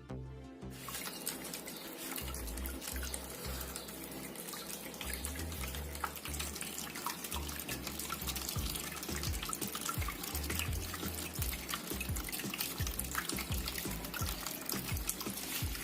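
Water splashing and trickling steadily in a small tabletop water fountain, with fine drips throughout, starting about a second in.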